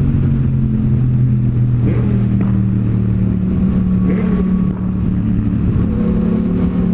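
Motorcycle engine running at a steady cruising speed with wind rush.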